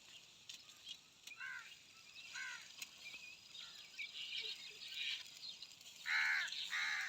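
Birds calling: two short calls, then two louder ones near the end, with faint high chirps in between.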